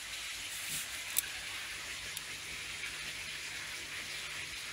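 Steady water hiss with a faint low hum underneath, and one sharp click about a second in.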